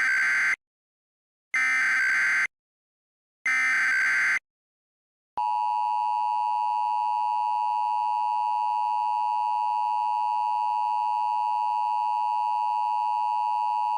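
Emergency Alert System SAME header: three short bursts of digital data tones, about a second each and two seconds apart. From about five seconds in comes the steady two-tone EAS attention signal.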